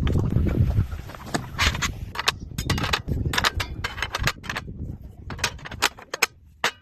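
Wind rumbling on the microphone for about the first second, then a run of irregular sharp clicks and clatters of hard objects being handled, thinning out near the end.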